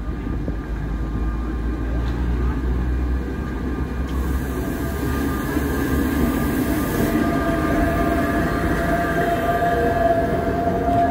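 Sóller's vintage electric tram and its wooden cars passing close by on street rails, the wheels rumbling on the track. A steady high whine grows louder near the end.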